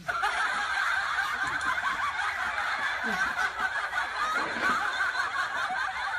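Many people laughing together in one steady, continuous wash of laughter, a dubbed-in laugh track that sets in abruptly.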